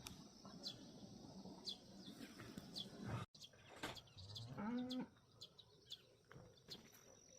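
Birds chirping faintly, short downward-sweeping chirps repeated every half second or so. About four and a half seconds in, a short pitched call rises and holds, louder than the chirps.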